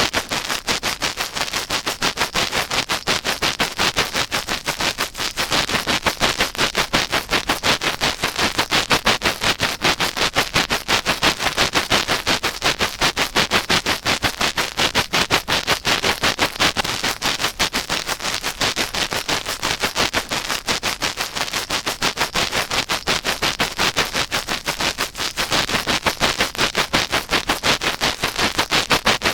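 Close ASMR ear-cleaning sounds on a binaural microphone's ear: rapid, even scratching and rubbing strokes, many a second.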